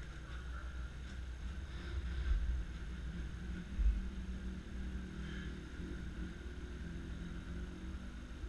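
Low rumbling and rustling of riding gear being handled close to the camera, with two louder bumps in the first half. A faint steady engine hum runs underneath.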